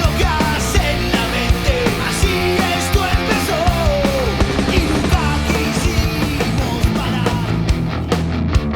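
Oi! punk rock song playing: distorted electric guitars over a driving drum beat, with a melodic line bending up and down in pitch.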